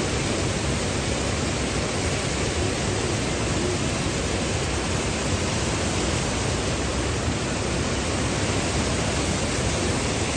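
Steady rushing of water flowing through a shallow, sandy stream.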